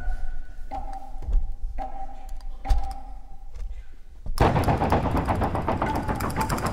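Live dance-accompaniment music: a wind instrument holds quiet notes in short phrases, with scattered low knocks. About four seconds in, a sudden dense run of rapid wooden clicking percussion starts and keeps going under the melody.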